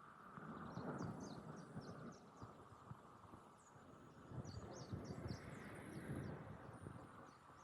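Faint outdoor ambience: birds chirping in short high calls throughout, over a low rumble that swells twice.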